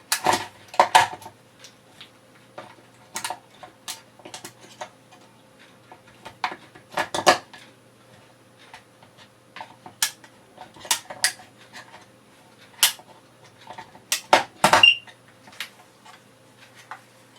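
Batteries being pushed into the plastic battery compartment of a carbon monoxide alarm: scattered clicks, knocks and plastic clatter in small clusters, with one brief high tone near the end.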